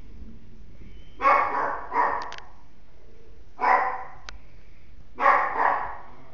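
Chihuahua barking: five sharp barks in three bursts, two, then one, then two.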